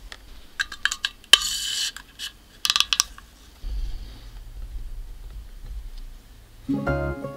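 Light clicks, taps and a short scrape of small hard objects being handled, typical of model-kit parts and tools on a workbench. Near the end, plucked acoustic guitar music begins.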